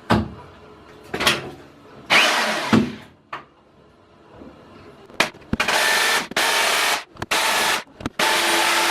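Electric drill running in non-hammer mode, boring into ceramic floor tile in short bursts of about a second each, with brief gaps between them. A few knocks come before the drilling starts.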